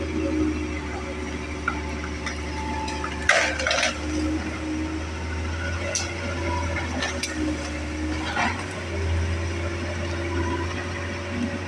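Hitachi hydraulic excavator running with a steady low drone, with sharp metallic clanks from its steel tracks or bucket now and then, a cluster of them a little over three seconds in.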